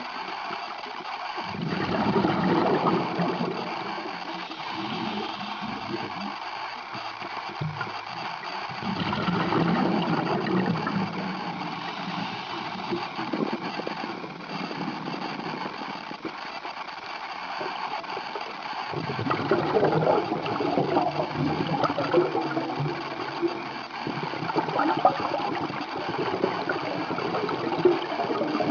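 Scuba diver's exhaled air bubbling out of the regulator underwater, in long bubbling bouts several seconds apart, with a quieter hiss between them.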